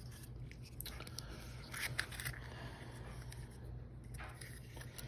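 Faint handling noises: a few light clicks and rustles, over a steady low hum.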